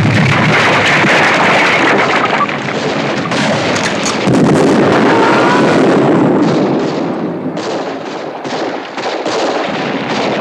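Film battle sound: a dense din of explosions and gunfire, with another loud surge about four seconds in. In the second half it breaks into many separate sharp gunshots.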